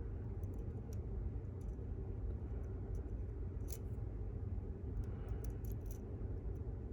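Faint, scattered small metal clicks of a lock pick working inside an Abus GDS lock, over a steady low hum.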